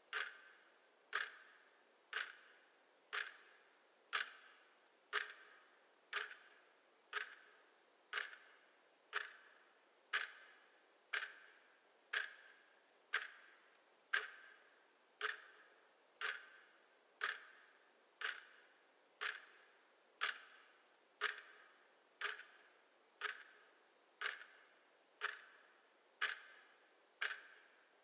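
Clock ticking steadily, one sharp tick every second, each tick ringing out briefly.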